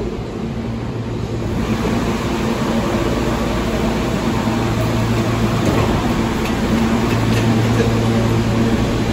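New York City subway train running in the station: a steady rumble with a low hum that grows louder about two seconds in and keeps building.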